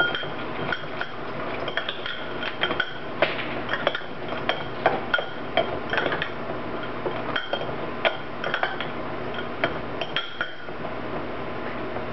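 A metal fork stirring dry dog kibble in a glass bowl, clinking and scraping irregularly against the glass, with the loudest clink right at the start, as diatomaceous earth powder is mixed into the food.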